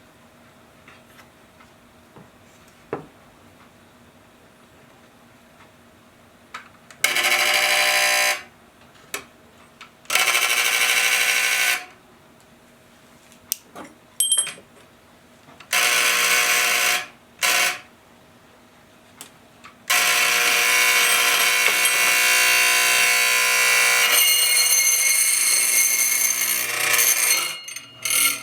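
A homemade electromagnetic doorbell, its wire coil fed straight from a 24-volt AC adapter, buzzing its spring-metal striker against the bell. About seven seconds in there is a run of short buzzes of one to two seconds each, then one held buzz of about eight seconds near the end. On AC it only roughly works: it makes noise.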